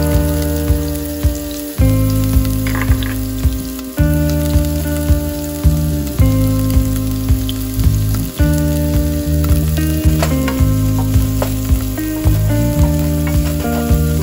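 Chopped onions sizzling in hot oil in a nonstick pot, a steady fine frying hiss. Background music with held chords that change about every two seconds over a steady beat is laid over it, and is the loudest sound.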